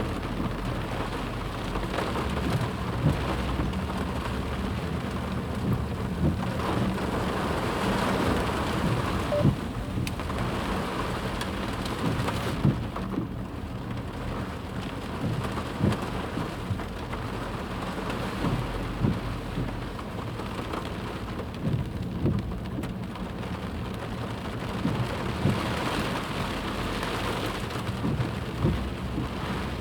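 Flash-flood torrent rushing: a steady, loud rush of water with a low rumble and many short sharp knocks and splashes scattered through it.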